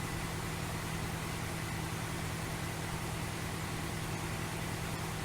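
Vehicle engine idling steadily: a constant low hum under an even hiss.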